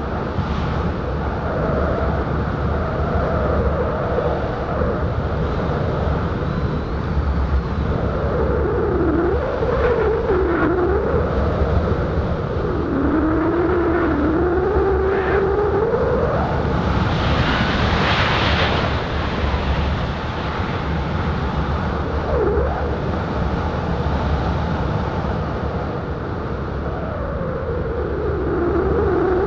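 Rushing wind noise on an action-camera microphone moving at about 60 km/h through the air, with a wavering whistle that rises and falls in pitch. There is a brief hissier gust a little past the middle.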